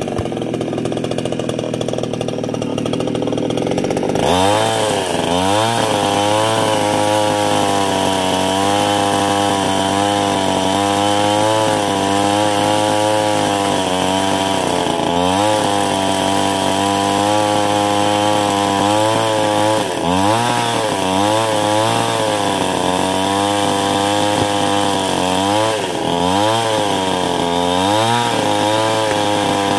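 Chainsaw revving up about four seconds in and cutting through a log. Its engine pitch wavers and dips briefly a few times as the chain bites under load.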